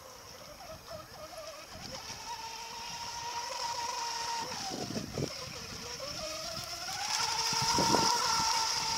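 High-pitched whine of an electric RC mono racing boat's Tenshock brushless motor and 30 mm propeller running flat out, with a hiss of spray. It grows louder as the boat passes close about eight seconds in, then drops in pitch as it runs away.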